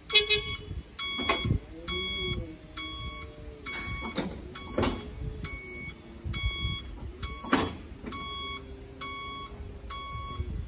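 Vehicle reversing alarm beeping about once a second, each beep a steady high tone lasting over half a second, from the small red recovery vehicle moving beside the tram. A few sharp knocks come in between, the loudest just at the start.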